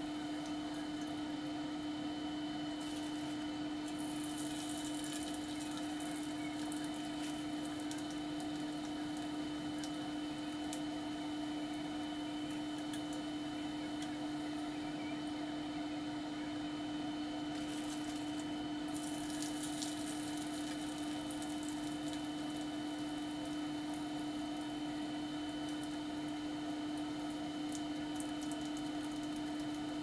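Dried fish deep-frying in hot oil in a wok: a steady fine sizzle and crackle that grows louder twice, about three seconds in and again near two-thirds of the way through, as fresh pieces go into the oil. Under it runs a constant low hum.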